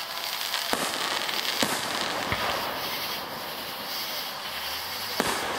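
Aerial fireworks shells bursting overhead: four sharp bangs, three in the first two and a half seconds and one near the end, over a steady hiss.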